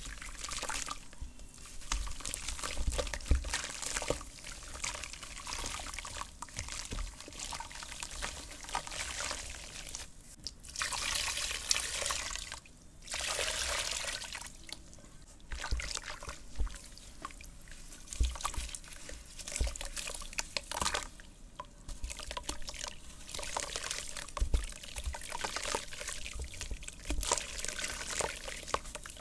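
Lumps of soft red dirt crumbling in water: an uneven crackle of small clicks and patters over a fizzing hiss, with two longer, denser stretches of hiss near the middle.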